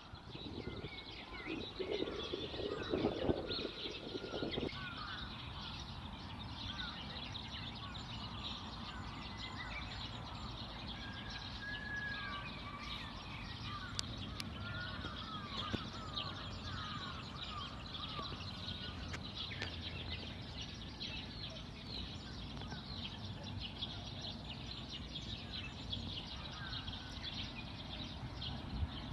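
Many wild birds chirping and calling together in a steady spring chorus, over a constant low background noise. A louder, lower sound joins in during the first few seconds.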